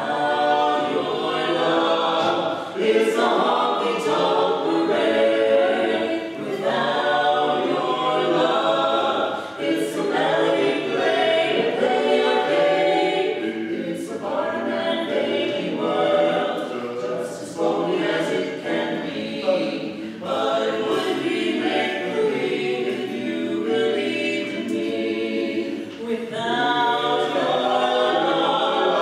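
Mixed voices singing a cappella in close barbershop harmony, in sustained chords phrased with short breaks every few seconds.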